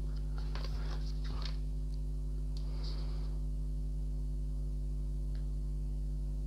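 Paper pages of a thin instruction booklet being turned, faint rustling and light clicks in the first three seconds. Under it, and louder, a steady low hum runs throughout.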